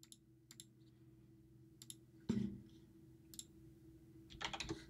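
Scattered light clicks of a computer mouse, then a quick run of keyboard keystrokes near the end, with one soft thump about halfway through.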